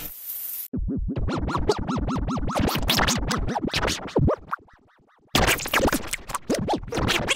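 Edited meme remix of the Cinnamon Toast Crunch sound clip: the sample chopped into rapid stuttering repeats, about seven a second, with a record-scratch effect. It drops to near silence a little past four seconds in, and a denser remix of the clip starts about a second later.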